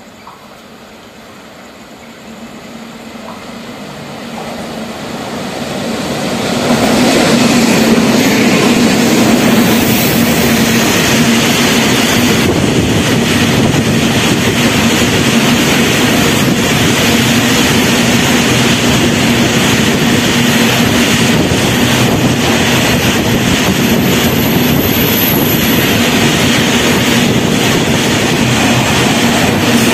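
Freight train of BOXN open wagons hauled by WAG-9 electric locomotives, growing louder over the first seven seconds as it approaches, then passing at speed as a loud, steady noise of wagon wheels on the rails with a steady low hum.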